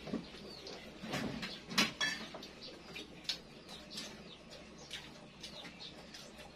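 Scattered short clicks of spoons and forks against plates and bowls during a meal, several a second or so apart.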